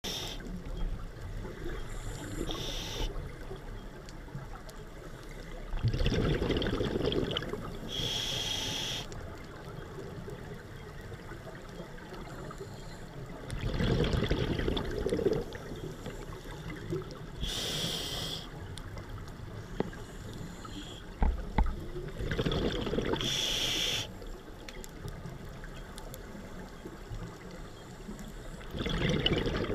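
Scuba diver breathing through a regulator underwater. Short hissing inhalations alternate with louder bursts of bubbling exhaust, about four breaths in all.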